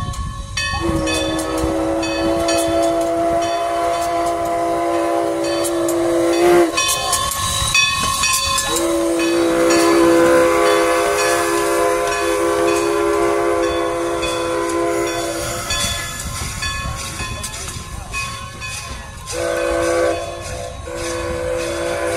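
Steam whistle of Everett Railroad steam locomotive No. 11 blowing two long blasts, a short one, then a fourth that starts near the end: the long-long-short-long grade-crossing signal, sounded at a whistle post. Steam hiss and clanking can be heard between blasts.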